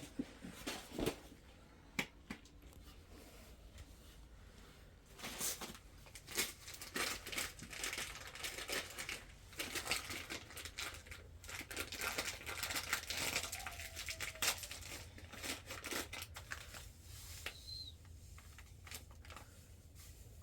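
Irregular rustling and crinkling with scattered clicks and taps, busiest through the middle and dying down near the end: something light being handled and moved about.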